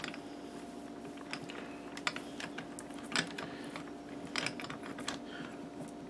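Small irregular clicks and rustles of fingers twisting the thin stripped copper wires of a USB cable together against a metal bench vise, over a faint steady hum.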